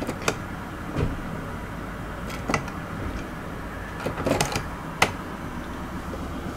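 A 2002 Mercury Mountaineer's 4.6 L SOHC V8 idling steadily in Park, heard from inside the cabin. A few sharp clicks and knocks come over the idle, the loudest about five seconds in.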